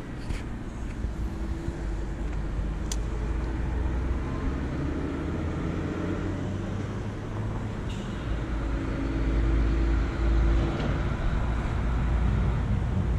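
Low steady rumble of road traffic with engine hum from passing vehicles, growing louder in the last few seconds, with a few small clicks.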